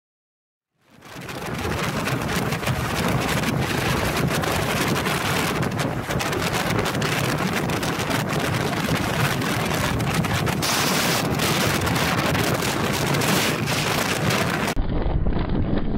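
Rain hitting a moving car's windshield and body in many quick ticks over steady tyre and wind noise on a wet road, heard from inside the car. It starts about a second in, and near the end it switches abruptly to a duller, muffled rain noise.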